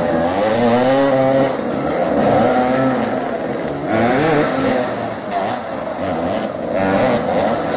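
Several motoball dirt bikes revving hard together, their engine notes overlapping and rising and falling as the riders spin and jostle for the ball.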